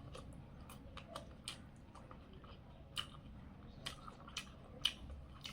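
A person chewing a mouthful of fried potato and soyabean close to the microphone, with sharp, wet mouth clicks and smacks coming at irregular intervals.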